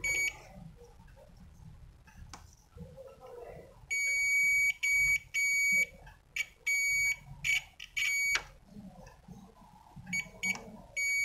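Digital multimeter's continuity buzzer beeping on and off in irregular beeps of different lengths, from short chirps to beeps of nearly a second, as its probes are drawn along a keyboard membrane's printed traces. Each beep marks continuity between the probe tips, so the beeps come while the probe sits on an unbroken stretch of the line.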